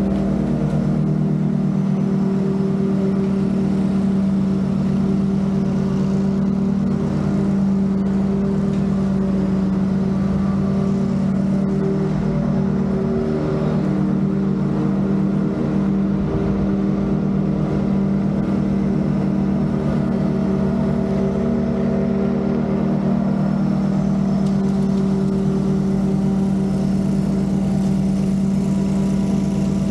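Lawn mower engine running steadily at a constant speed: an even, unbroken drone with a low rumble beneath.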